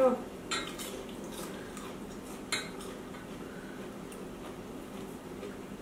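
Chopsticks and a ceramic bowl lightly clinking and tapping against a stainless-steel pot as noodles are lifted out and served: a few scattered clicks, the sharpest about two and a half seconds in, over a faint steady hum.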